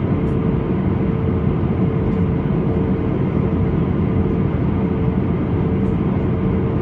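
Airbus A320-214 with its CFM56-5B engines in flight: a steady drone of engines and airflow with a constant mid-pitched hum, as heard from inside the cabin.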